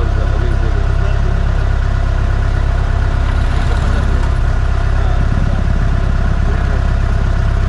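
Truck's diesel engine idling steadily: a deep, even rumble with no change in speed.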